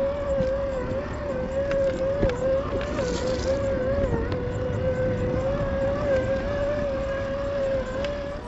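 A 1/10-scale RC rock crawler's electric motor and geared drivetrain whining at a steady pitch that wavers slightly as it crawls over rocks, with a low rumble and a few small clicks underneath.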